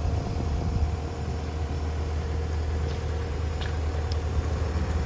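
Sumitomo SH120-A3 excavator's diesel engine running steadily, a low drone with faint steady higher tones over it.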